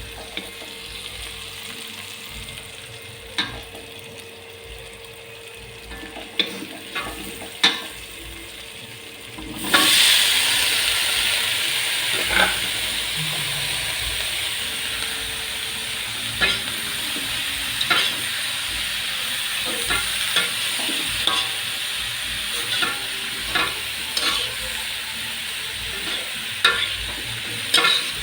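Stir-frying in hot oil: a few light clicks at first, then about ten seconds in food goes into the oil and a loud, steady sizzle starts. Short taps and scrapes of the spatula against the pan recur through the sizzle as the food is stirred.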